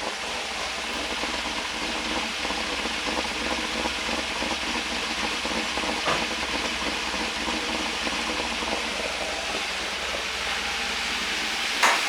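Chevrolet 5.3 L V8 running steadily at idle, with a steady hiss over it and one light click about halfway through. No pronounced lifter tick stands out: the engine is judged to sound good.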